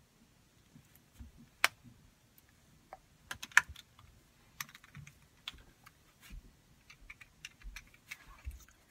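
Irregular light clicks and taps of small objects being handled, with sharper clicks about one and a half seconds in and around three and a half seconds in.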